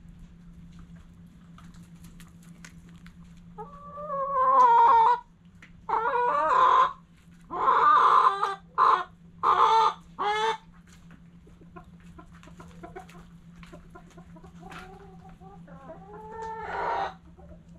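Backyard chickens calling: a run of loud, drawn-out squawks from about four seconds in to about ten and a half, another call near the end, and soft clucking in between.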